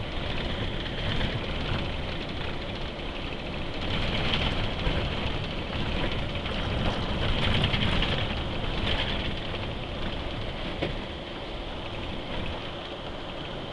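Steady road and tyre noise heard from inside a vehicle driving at speed, swelling a little louder a couple of times.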